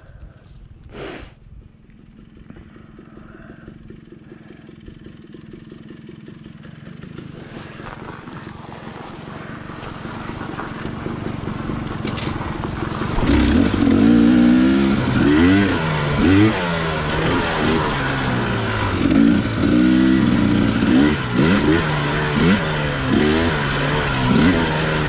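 Two-stroke dirt bike engine, low and quiet at first and growing steadily louder. From about halfway it revs hard, its pitch rising and falling again and again as the throttle is worked.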